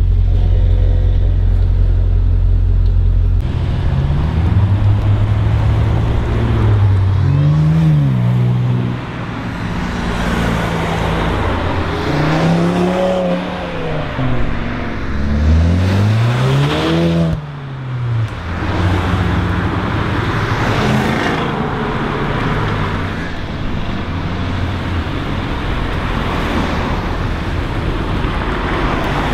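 Cars, mostly Audis, driving off and accelerating away one after another, engine notes rising through the revs and falling back in several pulls, the strongest about halfway through, then settling into steadier engine and tyre noise. A deep steady rumble fills the first few seconds and cuts off abruptly.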